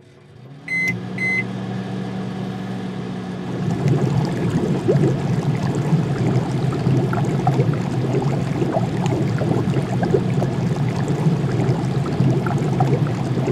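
Induction cooktop giving two short high beeps as it is switched on, then a steady electrical hum. From a few seconds in, a pot of broth boiling and bubbling joins the hum, a dense crackling that lasts to the end.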